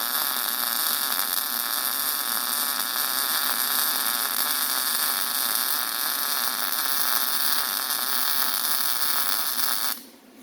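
MIG welder arc running steadily on mild steel while a bead is laid, cutting off suddenly near the end.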